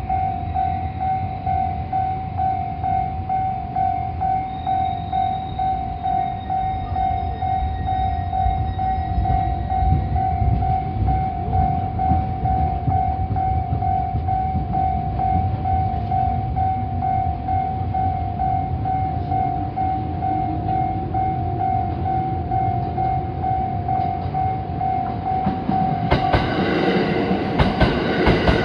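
Japanese level-crossing warning bell ringing with a steady, evenly repeating electronic ding. Near the end a 289 series electric limited-express train arrives, with loud rumble and wheels clattering over the rail joints.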